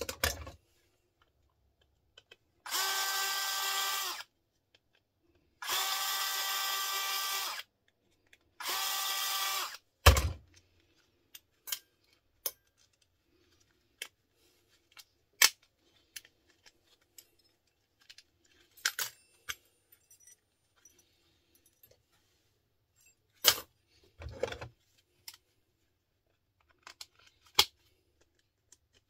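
Cordless drill running in three steady bursts of one to two seconds each, its motor whine even in pitch, followed by a sharp knock and then scattered clicks and clatter of small plastic and metal parts being handled.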